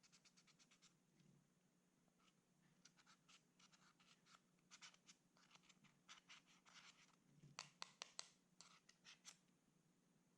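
Faint, quick sticky clicks and crackles of clear slime being squeezed and folded by hand. A few sharper pops come close together about eight seconds in.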